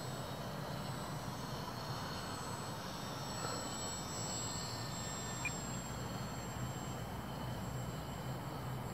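Electric motor and propeller of an H-King Cessna TTX RC model plane whining faintly high overhead, the pitch drifting slowly as it flies its circuit, over a steady low background rumble.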